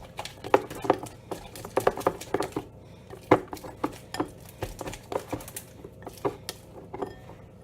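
A utensil stirring sticky PVA glue slime in a container, knocking and scraping against it in irregular clicks several times a second. The slime is thickening but still very sticky.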